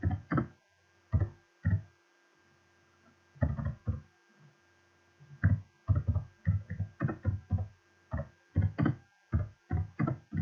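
Slow, irregular typing on a computer keyboard: single keystrokes with pauses of up to about two seconds at first, then a quicker, steadier run of keys in the second half.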